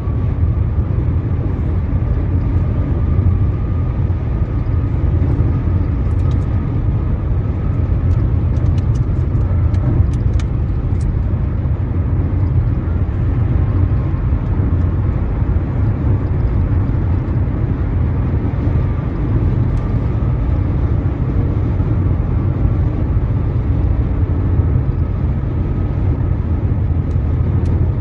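Road and engine noise inside a car cruising at highway speed: a steady low rumble with a faint steady whine above it, and a few faint clicks from about six to eleven seconds in.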